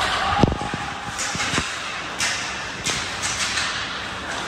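Game noise in a large hall: a few short thuds over a steady hiss of crowd and players.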